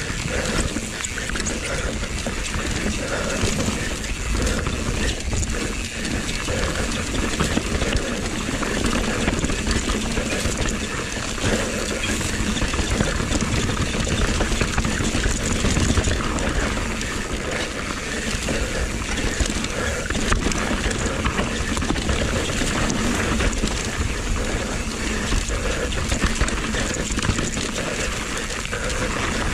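Mountain bike riding fast down a dirt singletrack: continuous tyre noise on dirt and roots, with the bike rattling and the rear hub ratchet ticking while coasting.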